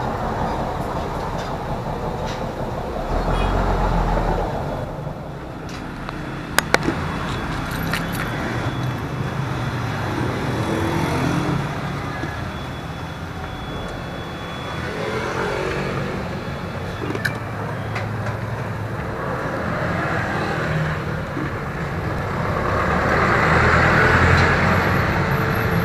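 Street traffic running past steadily, motor vehicles rumbling by, with a few sharp clicks and a louder passing vehicle near the end.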